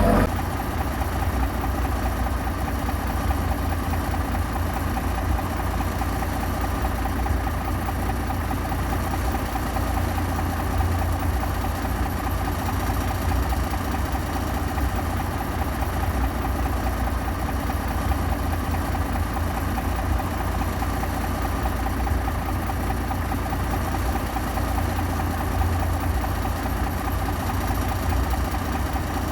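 Heavy diesel engine of earthmoving equipment running steadily at low, even speed, a constant low rumble with no changes in pitch or load.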